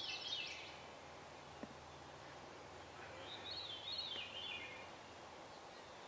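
A songbird singing two short, quickly warbling phrases, one right at the start and another about three seconds in, over a faint steady outdoor background.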